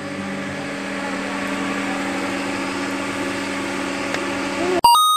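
A steady motor hum under an even hiss, like an engine idling. About five seconds in it cuts off, and a bright chime rings once and fades.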